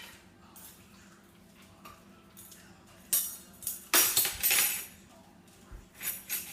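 Kitchen things being handled on a counter: short bursts of jingly rattling and clattering, a few about three to five seconds in and one more near the end.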